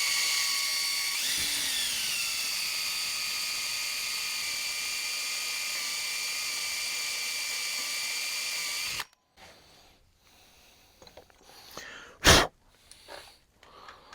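An electric drill runs with a steady whine while drilling holes in a bench vise part. Its pitch shifts about a second in, and it stops suddenly about nine seconds in. After that come light handling sounds and one sharp knock near the end, the loudest moment.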